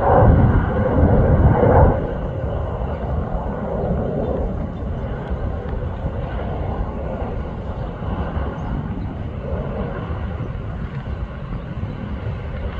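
Distant fighter jet on landing approach, its engines a steady rushing noise. The noise is louder for the first two seconds, then settles.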